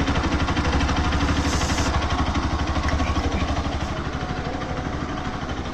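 An engine running steadily with a rapid, even pulse, easing slightly near the end.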